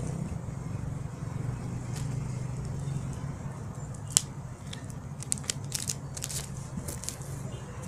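Crinkling and crackling of foil card-pack wrappers being torn open, a scatter of sharp clicks and crackles over a steady low hum, with the sharpest click about four seconds in and a denser run of crackling after it.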